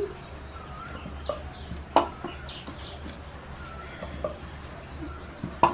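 Paper cups tapped down on a table, two sharp taps about two seconds in and near the end, with scattered short chirping calls in the background and a steady low hum.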